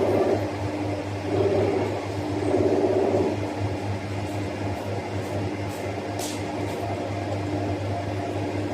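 Komatsu 850 excavator running with a steady engine drone, swelling louder twice in the first few seconds as the machine works.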